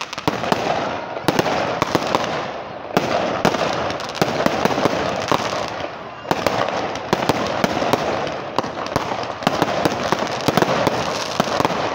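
Aerial fireworks bursting in a rapid, irregular barrage of bangs and crackling, several going off close together throughout.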